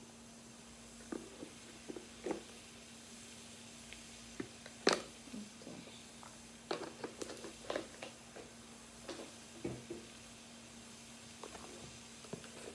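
Plastic spoon scraping and tapping inside a glass jar and against a plastic mixing bowl while paste is scooped out: scattered light clicks and scrapes, the sharpest about five seconds in, over a faint steady hum.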